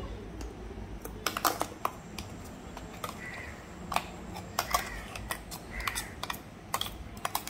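Steel spoon scraping and knocking against the inside of a stainless-steel mixer-grinder jar as thick coconut chutney paste is scooped out. It makes a series of irregular clicks and light taps with short scrapes between them.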